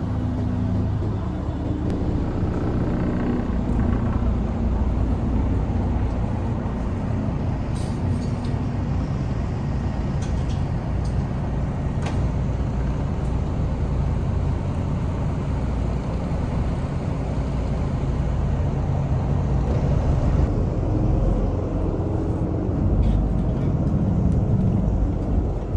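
Steady low drone of a river ferry's engines running while under way, heard from on board, with a low hum throughout.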